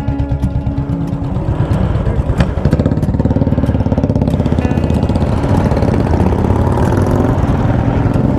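Royal Enfield Classic single-cylinder motorcycles riding off, their exhausts beating in a steady rapid pulse that grows louder about two seconds in. Guitar music plays underneath.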